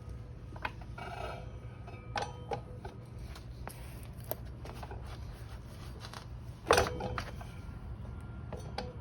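Metal parts of a motorcycle rear wheel assembly clinking and knocking as they are handled and worked into place. About two-thirds of the way through there is one loud metallic clank that rings briefly.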